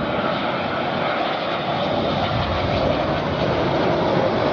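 Embraer KC-390's twin IAE V2500 turbofan engines on a low landing approach, a steady jet-engine rush that grows slowly louder as the aircraft nears.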